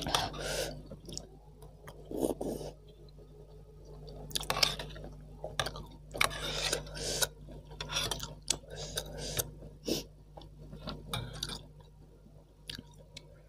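Eating sounds from a pot of spicy bakso aci soup: a metal spoon and fork scraping and clicking against the stainless steel pot, between bursts of slurping and chewing.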